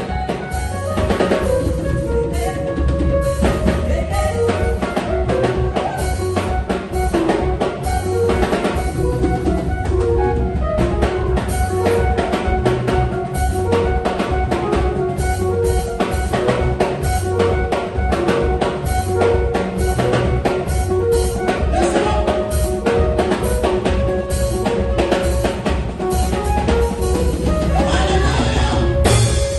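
Instrumental music with a steady drum-kit beat: bass drum, snare and rimshots over sustained bass and keyboard tones.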